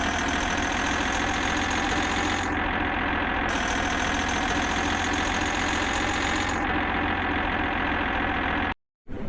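A large engine idling steadily, cutting off abruptly near the end.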